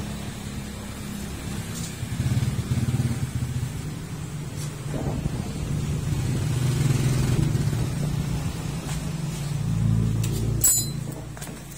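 An engine running: a low steady hum that swells louder through the middle and eases near the end, with a short rattle of clicks just before the end.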